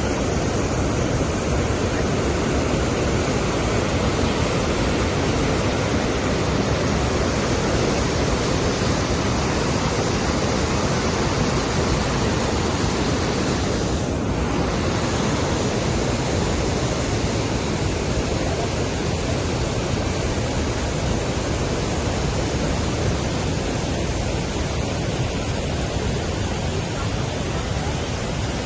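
Rhine Falls, a large river waterfall, pouring with a steady, loud rush of water.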